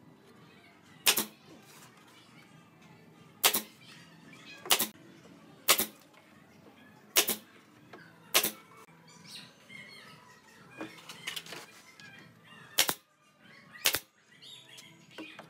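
Pneumatic brad nailer driving nails into wood: eight sharp cracks at irregular intervals of one to two seconds, with a longer pause in the middle filled by light clatter of the wood being handled.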